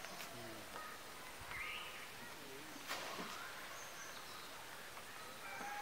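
Faint outdoor ambience: a steady hiss with a few faint chirps, and one sharp click about three seconds in.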